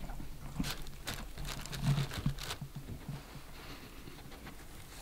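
A corgi nosing through a cardboard gift box: tissue paper rustling and crinkling, with light taps against the box, busiest in the first couple of seconds and then quieter.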